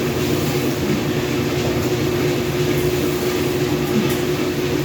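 Washing machine running loudly: a steady machine hum with a constant drone over a low rumble.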